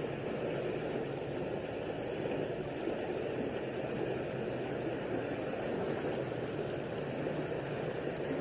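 Steady rush of a fast-flowing river current, an even noise with no distinct events.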